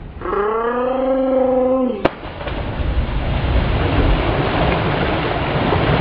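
A person's long drawn-out yell lasting about two seconds. It breaks off abruptly and gives way to a steady rush of noise from splashing lake water.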